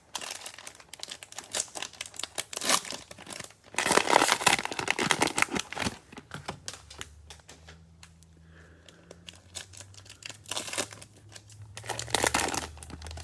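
Cellophane wrapper of a trading-card cello pack crinkling and tearing as it is handled and opened, in irregular crackles, loudest about four seconds in and again near the end.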